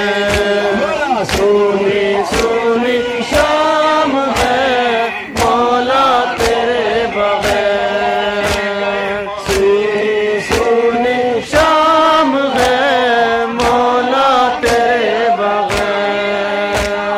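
Men chanting a noha, a Shia lament, in chorus with long held notes. Sharp chest-beating slaps (matam) keep an even beat about twice a second.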